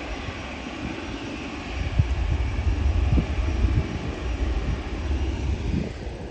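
Jet airliner passing low overhead, a steady jet roar and hiss with a deep rumble that swells about two seconds in.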